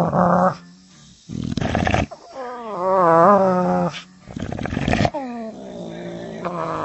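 A dog making drawn-out, pitch-wavering vocal sounds, three long ones in a row with a short breathy sound between them. The last one slides down in pitch.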